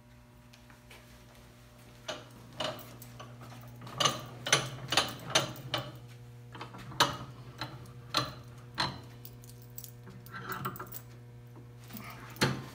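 Scattered clicks, knocks and metal clinks of a mounted half-hull model and its wooden plaque being set into a bench vise and clamped, with a sharper clink near the end.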